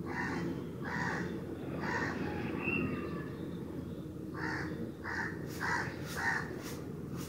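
Crows cawing: three harsh caws about a second apart, then a quicker run of four caws near the end.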